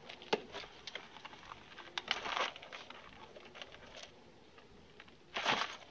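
A man getting out of a car and walking off: scattered clicks from the car door, then short scuffing footsteps on stony ground, the two loudest scuffs about two seconds in and near the end.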